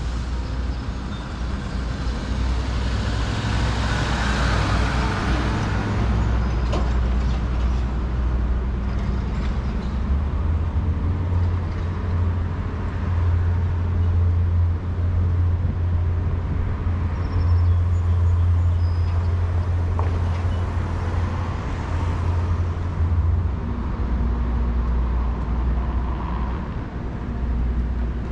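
City street traffic: a car passes about four seconds in, over a steady low rumble, and another vehicle goes by more faintly near the end.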